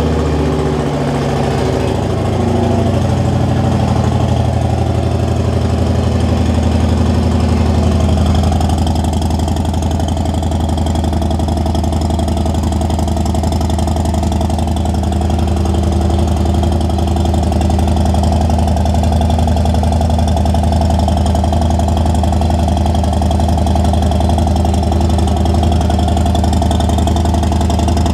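2023 Harley-Davidson Road Glide ST's Milwaukee-Eight V-twin, breathing through a Fuel Moto Contender 2-into-1 exhaust with its baffle pulled out, idling just after a cold start. The revs drop over the first couple of seconds, then it settles into a steady, loud idle.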